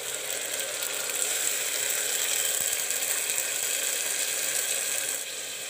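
Ginger, garlic and onion paste frying in hot oil in a pressure cooker: a steady sizzle with fine crackling, easing slightly near the end.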